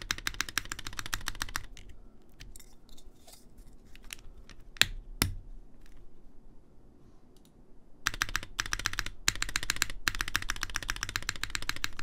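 Typing on a KBDfans Taco75 mechanical keyboard with an aluminium plate, L+F Gateron Uhmknown switches, GMK Minimal keycaps and no foam. Fast runs of keystrokes come at the start and again from about two-thirds in, with sparser keystrokes between and two loud spacebar strikes close together. The 7U spacebar sits on a north-facing switch with its keycap not flipped, which causes a little interference that sounds kind of bad.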